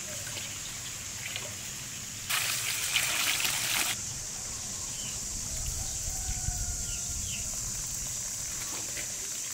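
Water from a garden hose trickling into a plastic basin, with a louder spell of splashing lasting about a second and a half, a couple of seconds in.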